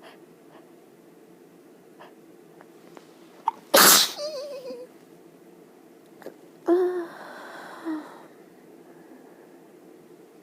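A person sneezes once, loudly, about four seconds in: a quick intake of breath, then a sharp burst with a short falling voiced tail. A second, longer voiced sound of about a second and a half follows some three seconds later.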